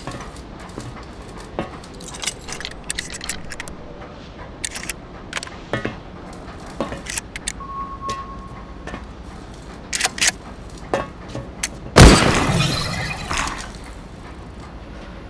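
A string of light clinks and clicks, then one loud crash about twelve seconds in, with a shattering tail that fades over a second or so.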